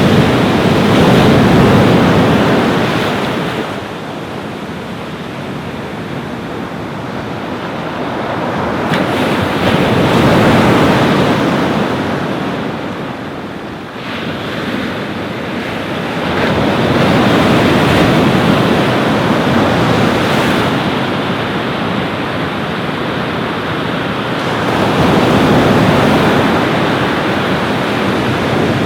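Ocean waves breaking and washing up a beach, the surf rising and falling in slow surges every six to eight seconds, with wind buffeting the microphone.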